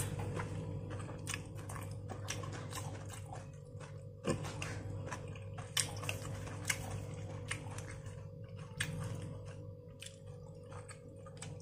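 A person eating fried noodles: chewing and mouth smacks with many small, irregular clicks as wooden chopsticks take noodles from the plate. A faint steady hum lies underneath.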